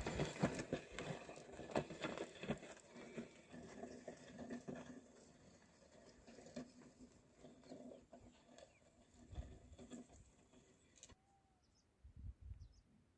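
Faint field sounds: scattered knocks and rustling that die away, with a couple of brief, faint bird chirps near the end.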